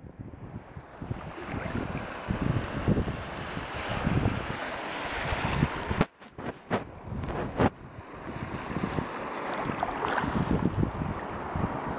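Steady rushing noise of wind and water that swells and falls, briefly breaking off about six seconds in.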